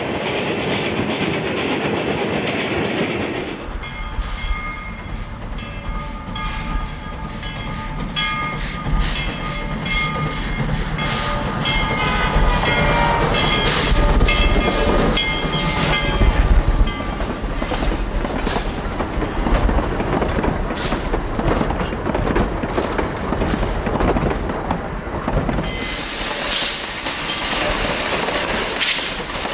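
Southern Pacific 18, a 1911 narrow-gauge 4-6-0 steam locomotive, working past with rhythmic exhaust chuffs. From a few seconds in it blows its whistle in several long and short blasts. The passenger cars then roll by with clickety-clack wheel noise and a rising metallic hiss near the end.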